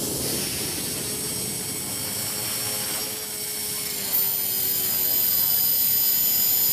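Align T-Rex 450 Pro electric RC helicopter in flight, its rotor and brushless motor making a steady whine. It gets louder from about four seconds in as the helicopter descends close to the ground.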